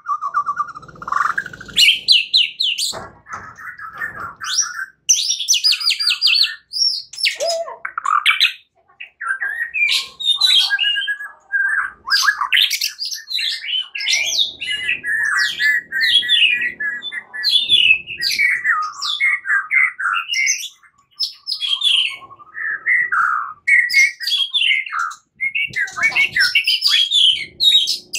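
White-rumped shama (murai batu) singing a long, varied song of whistled slurs, chattering notes and rapid trills, with only brief gaps. It is the fighting-style ('tarung') song used as a lure to provoke other shamas.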